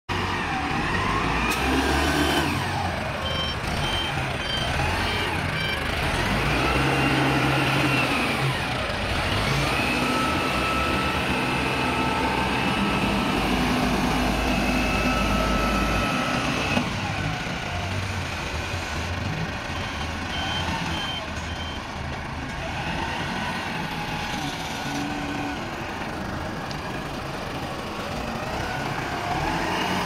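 Self-loading concrete mixer truck's engine running and revving up and down as it works, with a steady whine for a stretch in the middle. Two runs of short, evenly spaced beeps come in, one a few seconds in and one about two-thirds of the way through.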